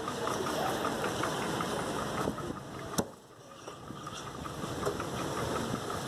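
Butcher's cleaver chopping chicken on a wooden chopping block, one sharp chop about three seconds in and a few fainter knocks, over a steady mechanical hum.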